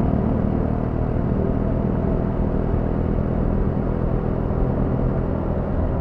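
Motorcycle engine running steadily under way, a low, even rumble of engine and road noise.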